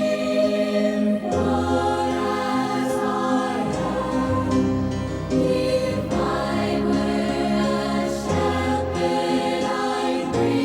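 Sacred choral music: a nuns' choir singing long held notes with instrumental accompaniment, the chords changing every second or two.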